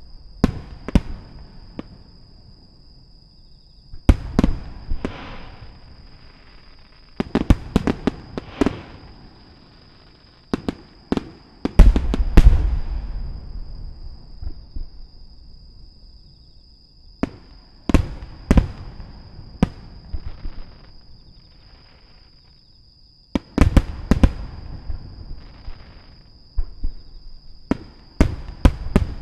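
Aerial fireworks shells bursting in groups of sharp bangs every few seconds, each bang trailing off into an echoing rumble; the loudest group comes about twelve seconds in.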